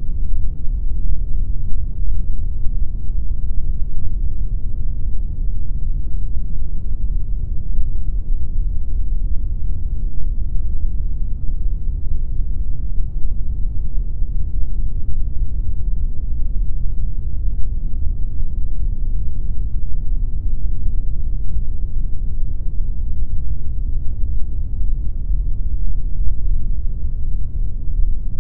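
Steady synthetic pink noise: an even, deep hiss with most of its weight in the low end, unchanging throughout.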